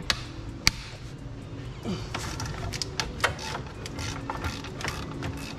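Hand tools clicking and knocking on metal during engine work under the hood. Two sharp knocks come near the start, then a quick, irregular run of clicks about two to three seconds in.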